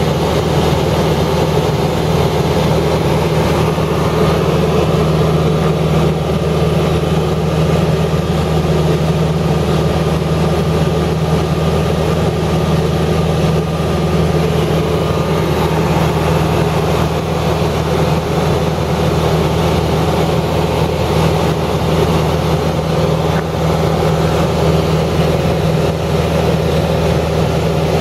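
A steady low engine hum running without change.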